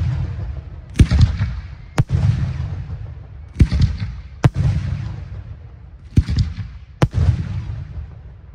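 Large aerial firework shells bursting. The sharp bangs come in three pairs about a second apart, each followed by a long rumbling echo that fades.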